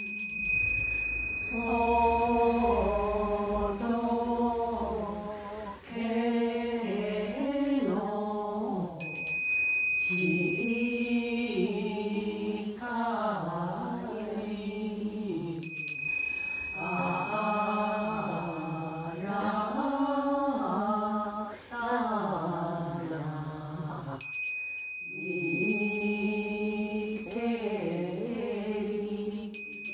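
A voice singing a slow, melodic Buddhist chant, moving step by step between long held notes. A small bell is struck about every seven to nine seconds, each strike ringing on one high tone for a second or two.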